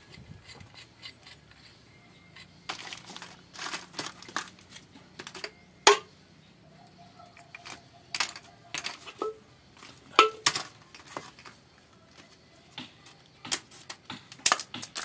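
Scattered clicks and clinks of pipe fittings being handled: metal pipe parts and a pig nipple drinker knocking together and plastic PVC fittings rattling as they are picked from a bag. Two louder metallic clinks with a short ring come about six and ten seconds in.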